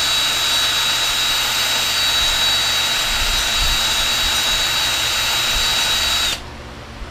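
20-volt cordless drill with a socket on the flywheel nut, running at a steady speed to turn the mower engine over, with a steady high whine; it stops suddenly about six seconds in.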